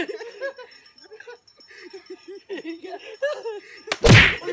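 A group of men laughing and giggling in quick short bursts. Near the end comes a sharp smack, then a loud, heavy thump.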